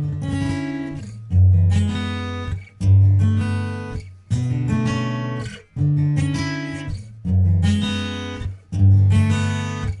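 Background music: strummed acoustic guitar chords, a new chord about every second and a half, each ringing and fading before the next.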